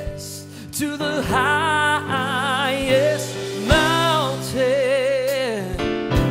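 Male gospel singing: a man belting long held notes with heavy vibrato over steady sustained chords, with a few drum hits.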